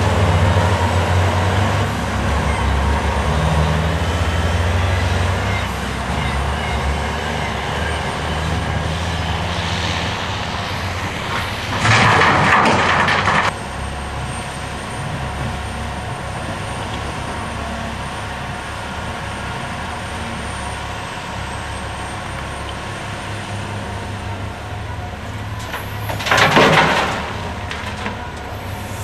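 Diesel engines of a Caterpillar 345B L excavator and Cat articulated dump trucks running, the low engine drone heaviest in the first few seconds. Two loud rushing bursts, each a second or so long, break in near the middle and near the end.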